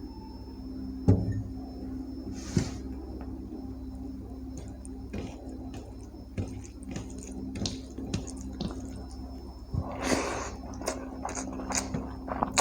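Hands handling and mixing rice and curry gravy on a plate: small wet clicks and squishes with a sharp knock about a second in, over a steady low hum.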